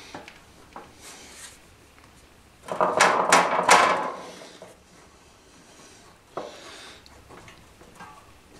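Thin sheet steel being shifted and flexed against a metal bench while it is positioned in a hand louver tool: a scraping rattle about three seconds in lasting about a second, then a single light knock later.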